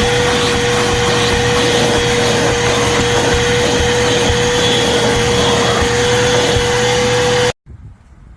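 Small BLACK+DECKER 1-gallon wet/dry shop vacuum running loud and steady, a constant hum over the rush of air. It cuts off abruptly near the end.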